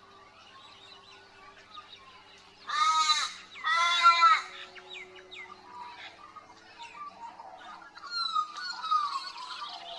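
Morning bird chorus: many small chirps and whistles. Two loud, drawn-out calls come close together about three seconds in, and a run of falling whistled notes follows near the end.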